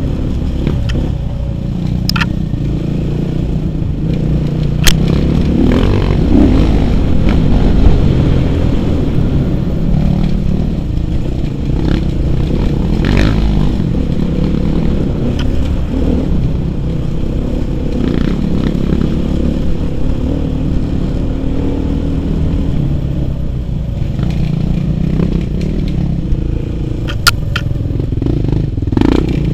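Suzuki RM-Z 450's single-cylinder four-stroke engine running on board while riding a rough dirt trail, its note rising and falling with the throttle. A few sharp clicks and knocks cut through, the loudest about five seconds in and two more near the end.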